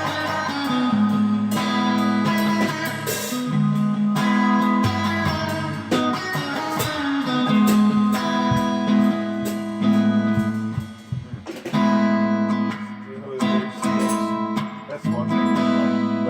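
Guitar playing strummed chords and picked notes, each chord held for a second or two before changing.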